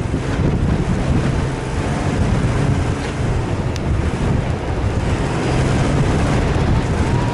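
Off-road vehicle driving, a steady low engine rumble with wind buffeting the microphone.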